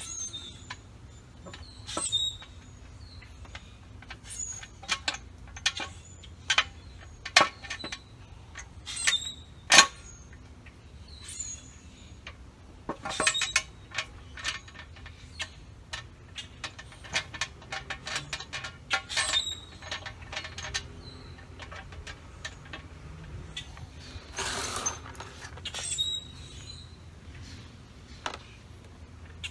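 Scattered sharp metallic clicks and clinks of spacers, Allen bolts and nuts being fitted by hand at a motorcycle's front fender mount, a few of them ringing briefly, with a short rasp near the end.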